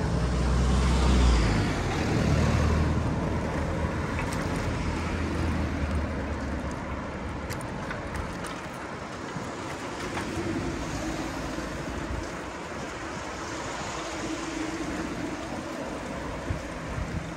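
Street traffic noise: a motor vehicle passes close, loudest about a second in and fading away over the next few seconds, then a steady wash of traffic noise.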